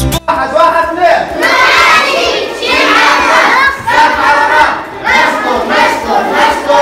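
A group of children shouting a cheer together, many voices at once, in phrases about a second apart. A cheer of thanks.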